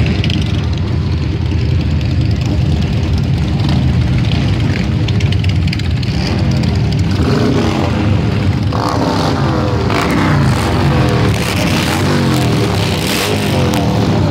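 A procession of cruiser and touring motorcycles riding past at low speed, engines rumbling steadily. From about seven seconds in, the engines rev up and down over and over as bikes pass close by.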